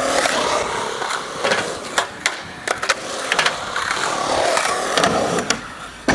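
Skateboard rolling on concrete, with a string of sharp clacks and knocks from the board and wheels.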